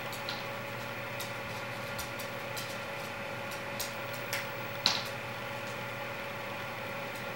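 A dog's claws clicking irregularly on a hardwood floor as it walks about, with one louder click about five seconds in, over a steady background hum.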